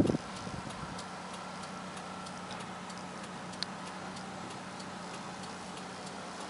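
Faint ticking over a steady low hum in a car's cabin, with a brief loud knock or rustle right at the start.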